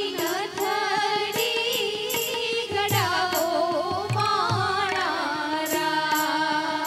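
Live Indian band music over a PA: a woman's sung melody with gliding held notes, over keyboard and low tabla strokes.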